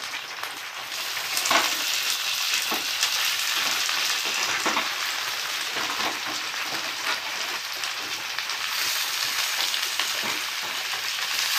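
Chicken feet sizzling as they are dropped into hot oil and onions in a steel kadai. The sizzle swells about a second in and holds steady, with scattered sharp crackles.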